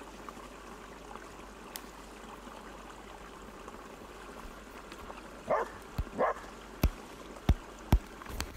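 Steady outdoor background hiss with two short animal calls a little past halfway, followed by a quick series of five sharp knocks near the end.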